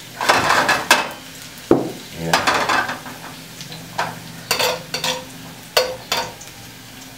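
A metal ladle scraping and clinking against a hammered wok in irregular strokes as sliced garlic is stirred in sizzling hot oil, with a steady frying hiss beneath. The garlic is being fried toward golden brown.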